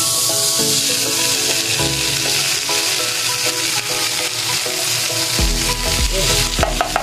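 Corn kernels sizzling loudly and steadily in bubbling melted fat on a hot sizzling plate, just after being poured from the can. A low rumble joins in about five and a half seconds in.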